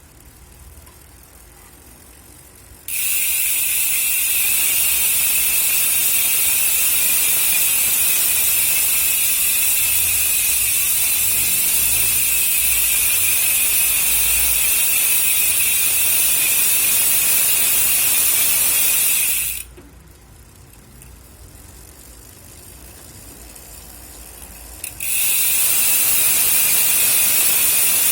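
Speedone Soldier six-pawl bicycle rear hub freewheeling, its pawls clicking so fast that they merge into a loud, steady, high buzz. The buzz starts about three seconds in, cuts off near twenty seconds, and starts again about twenty-five seconds in.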